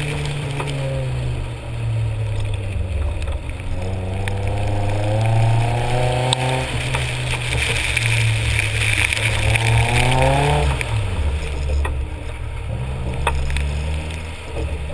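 Nissan 240SX's KA24 2.4-litre four-cylinder engine driven hard on a wet autocross course, revving up twice with rising pitch, then lifting off sharply a little before eleven seconds in. Wet tyres hiss under the engine.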